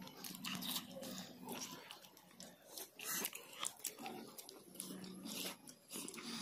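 Close-up eating of fried fish: irregular sharp crunches, bites and lip-smacks as the bony, crisp fish is chewed.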